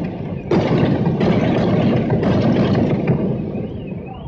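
Loud, rough street noise in a poor recording, with sudden surges. Near the end a high wavering tone, rising and falling about twice a second, comes in over it.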